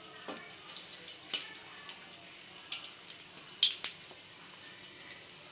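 Battered green chilies deep-frying in hot oil in an aluminium kadai: a low sizzle with scattered sharp pops and crackles, the loudest a pair of pops a little under four seconds in.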